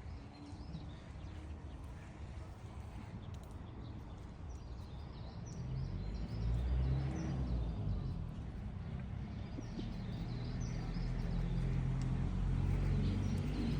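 Outdoor forest ambience: a low, steady rumble, like a distant engine, grows louder from about six seconds in, with faint scattered bird chirps above it.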